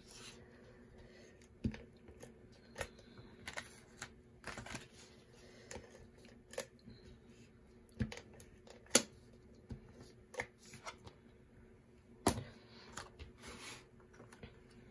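Cardstock handled on a tabletop while a Stamp & Seal tape runner lays adhesive along the back of a paper panel: soft paper rustles and scattered sharp clicks, the two loudest about nine and twelve seconds in.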